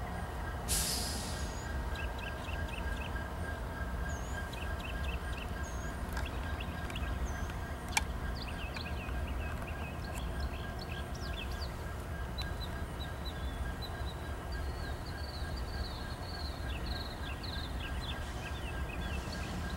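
Low steady rumble of a CSX diesel locomotive running close by, with small birds chirping repeatedly over it. A brief rustle comes about a second in, and a sharp click about eight seconds in.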